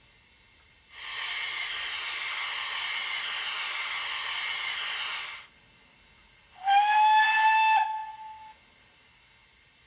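Bachmann Dukedog (GWR Earl class 4-4-0) model locomotive's DCC sound decoder playing through its small onboard speaker: a steady hiss of the cylinder drain cocks for about four and a half seconds, then, after a short pause, one short blast of the steam whistle, rising slightly in pitch at its start.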